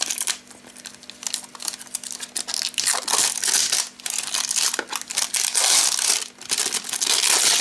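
Thin clear plastic wrapping crinkling and rustling in quick irregular crackles as it is handled and pulled off a new DT-830B digital multimeter, growing louder over the last few seconds.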